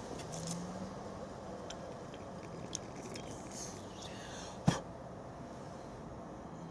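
A few small clicks and one sharp knock about four and a half seconds in over a steady faint hiss, typical of the Esbit camping coffee maker and cup being handled.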